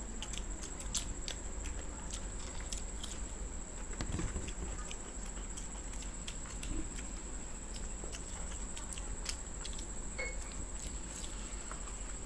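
Two people chewing and biting fried samosas close to a table microphone: soft, irregular crunching and mouth clicks, with a steady faint high whine behind them.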